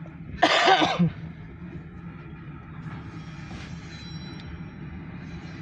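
Alco diesel switcher locomotive running steadily with a low hum. There is one loud, brief noise about half a second in that lasts under a second.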